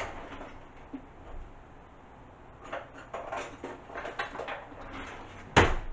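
Kitchen utensils and fittings being handled as someone rummages for a scoop: a run of small clicks and clatters from about three seconds in, then one loud knock near the end.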